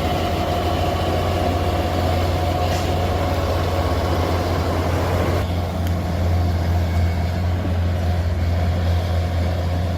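Heavy vehicle engine running steadily with a deep, even hum. The sound above the hum changes abruptly about five and a half seconds in.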